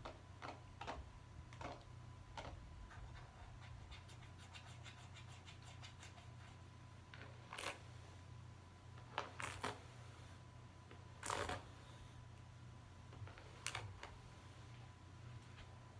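Soft, scattered scratching and clicking sounds. A quick run of light ticks comes a few seconds in, then a handful of louder scratchy strokes, over a faint steady hum.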